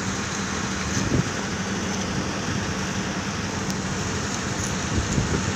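Steady background noise of running machinery: a constant low hum under an even hiss, with a faint knock about a second in and another near the end.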